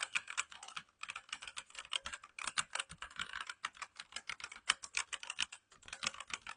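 Fast typing on a Gamen Titan Elite mechanical keyboard with red linear switches: a rapid run of keystroke clacks, with a brief pause about a second in and another near the end.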